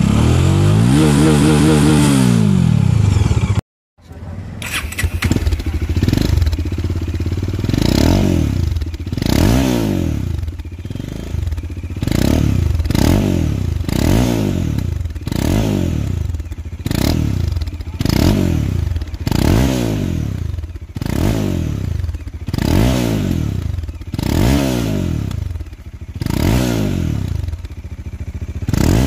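Bajaj Dominar 400's single-cylinder engine revved through aftermarket slip-on exhausts, each throttle blip rising and falling in pitch. One rev through a chrome exhaust; then, after a brief cut about four seconds in, repeated blips about once a second through a short black muffler with a honeycomb end.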